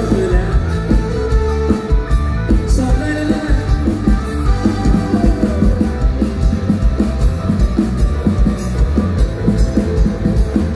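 Live band music played loud through a stage PA, with a steady drum beat and guitar and a singer's voice over it.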